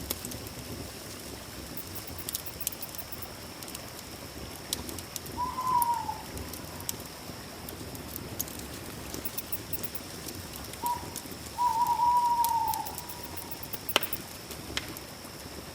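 Campfire crackling in scattered sharp pops over a steady high-pitched tone, with one sharp, louder crack near the end. An animal call falling at its end comes about five seconds in, and a longer two-part call about eleven seconds in.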